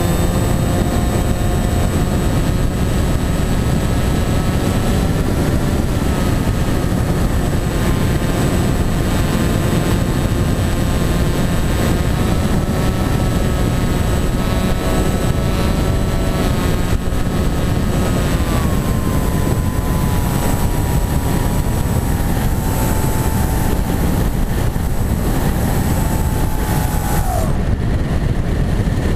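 Electric motor and propeller of a foam flying-wing model plane in flight: a whine made of several tones, shifting slightly in pitch, over heavy rushing wind noise. The whine steps down in pitch about two-thirds of the way through and falls away quickly near the end.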